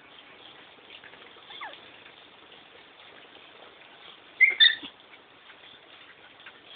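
Small dogs play-fighting, with a short falling whine at about a second and a half, then two quick, loud, high-pitched yips about four and a half seconds in. Recorded through a phone's microphone, so the sound is thin.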